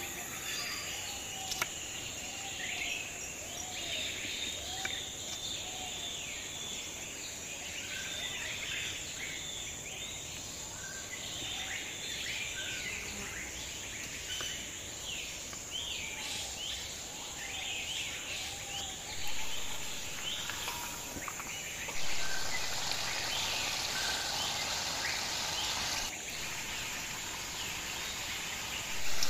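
Birds chirping again and again over a steady high insect drone, with an occasional sharp click of a knife on a wooden cutting board. About three-quarters of the way in, a louder, even hiss joins.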